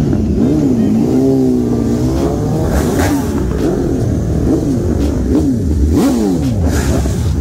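Sportbike engines revving up and down in quick rises and drops, more than one at a time, with the pitch climbing and falling every second or so through gear changes.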